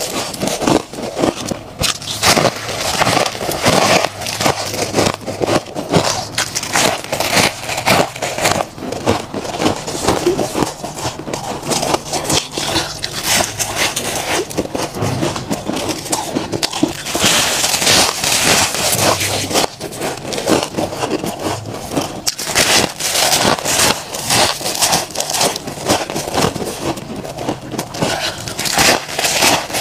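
Soft freezer frost being bitten and chewed close to the microphone: a dense, continuous run of crisp crunches and crackles.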